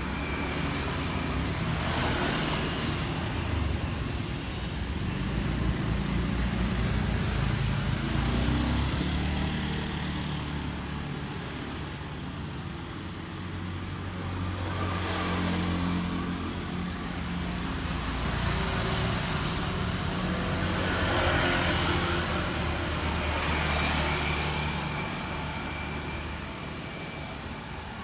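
Street traffic: engines of passing vehicles running under a steady low hum, swelling and fading several times as vehicles go by.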